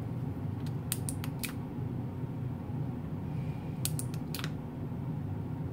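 Sharp small clicks over a steady low hum: a quick run of about five in the first second and a half, then three more around four seconds in.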